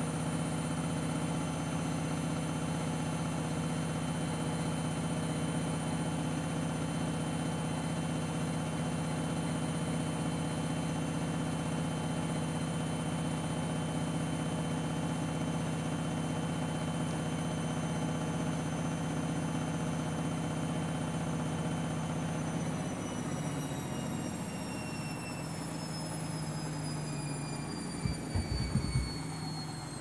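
Front-loading washing machine on a 1200 rpm final spin, its motor and drum giving a steady high whine over a low hum. About three quarters of the way through the whine starts falling in pitch as the drum slows, and a few low thumps come near the end.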